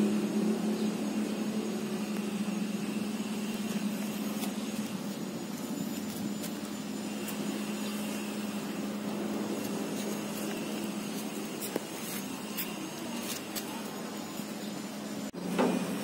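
A steady low mechanical hum, with a few faint clicks scattered through it.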